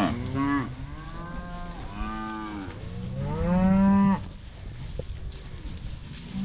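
Cattle mooing: several moos one after another, the longest and loudest about three to four seconds in, with a shorter moo near the end.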